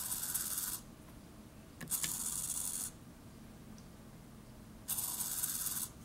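Small hobby micro servo whirring in three bursts of about a second each, with quiet gaps between. It is driven by the boiler pump controller working the feed valve linkage while the water level reads 'filling', and the last burst ends as the controller switches the pump off.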